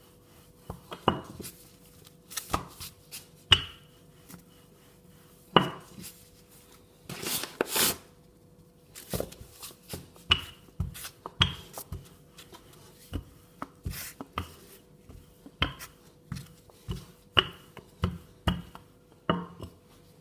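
Wooden rolling pin rolling out tart dough on a granite countertop: irregular knocks and clacks about once a second as the pin is set down, lifted and pushed, with a longer scraping rush about seven seconds in.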